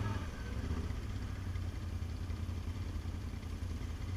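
ATV engine running steadily, with no sharp changes in pitch or loudness.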